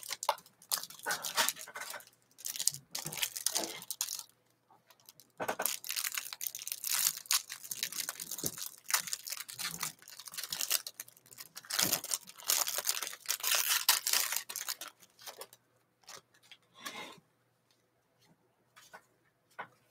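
Plastic wrap and cardboard of a 2020 Panini Playbook football-card hanger box being torn and crinkled open by hand, in repeated spells of crackling and rustling. It dies down to a few light clicks of cards being handled in the last few seconds.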